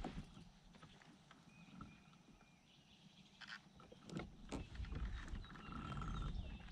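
Quiet ambience in a fishing kayak: a few faint knocks of gear being handled on the boat about halfway through, over a low rumble, with faint bird calls.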